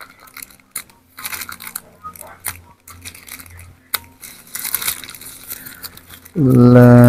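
Plastic packaging rustling and crinkling in irregular bursts as a cable is unwrapped from its bag. Near the end a man's voice starts with a long, drawn-out sound.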